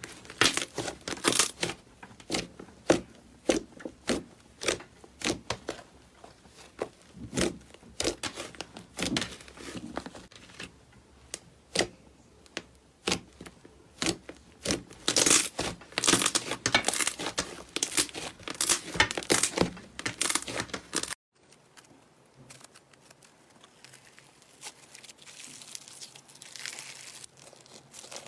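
Slime being squeezed and stretched by hand, with dense crackling and popping. About 21 seconds in it cuts abruptly to a quieter stretch of softer squishing.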